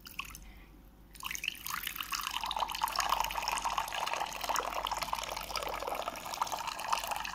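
A thin stream of water poured onto a dry terracotta clay dish in a plastic bowl, splashing steadily with a crunchy crackle as the dry clay soaks up the water. The pour starts about a second in.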